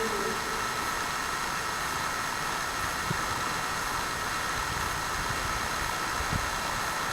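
A long, low, pitched animal call ends with a short downward slide just after the start, then gives way to steady night-time hiss with a faint constant high whine. There are two faint soft knocks in the quiet gap.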